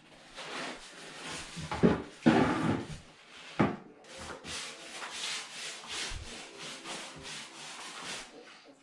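Brush scrubbing SBR sealer onto a cement backer board floor: repeated rough brushing strokes, loudest about two seconds in, with lighter strokes through the rest.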